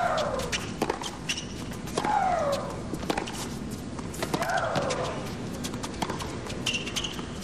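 Tennis rally on a hard court: sharp racket-on-ball hits and footwork on the court, with a player's shriek falling in pitch on her strokes, three times about two seconds apart.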